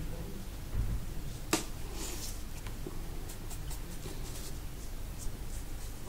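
Faint scratching and dabbing of a small paintbrush working acrylic paint on paper, with a single sharp click about one and a half seconds in.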